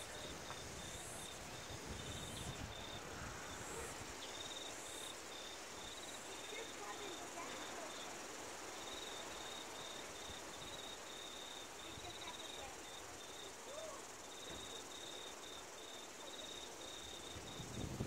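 Faint, high cricket chirping in long runs of rapid, even pulses, broken by short pauses.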